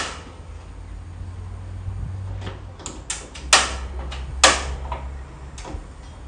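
Gas grill burner control knobs being pushed in and turned one after another, with several sharp ignition clicks, lighting the main burners on their lowest flame. A low rumble comes and goes between the clicks.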